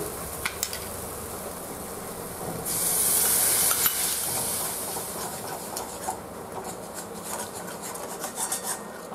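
Beaten curd poured into a hot kadhai of tomato masala, hissing and sizzling loudly for about a second, then a metal spatula stirring and scraping against the pan.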